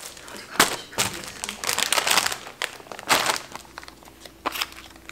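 Plastic food packaging crinkling in irregular bursts as it is handled: the bags holding flour tortillas, shredded mozzarella and baby spinach.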